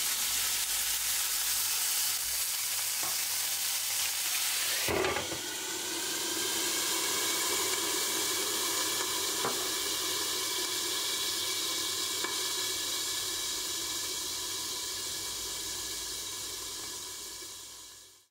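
Burger patty sizzling in a hot frying pan. About five seconds in there is a knock, a glass lid set on the pan, and the frying goes on more muffled under the lid, fading out near the end.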